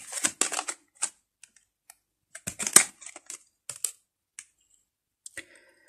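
Tarot cards being laid down and slid into a row on a tabletop: scattered light clicks and taps in small irregular clusters, the sharpest one a little before the middle.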